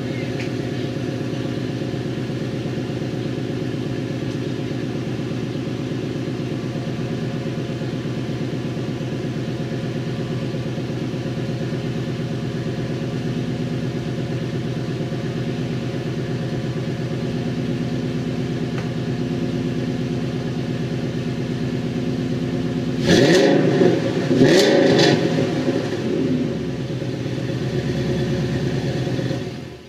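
2007 Ford Mustang GT's 4.6-litre V8, fitted with JBA long-tube headers, a catted H-pipe and Flowmaster axle-back mufflers, idling steadily, then revved twice in quick succession about 23 seconds in before dropping back to idle.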